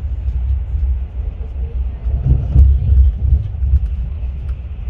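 Deep, steady rumble of a Class 43 HST (InterCity 125) train running along the line, heard from on board, swelling briefly about two and a half seconds in.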